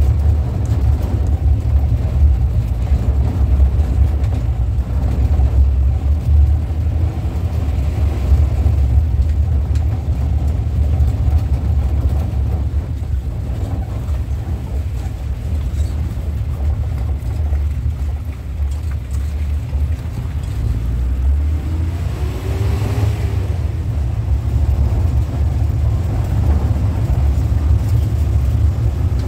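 Car engine and road noise heard from inside the cabin while driving on a rough, narrow road: a steady low rumble. Near the end there is a brief rise in pitch.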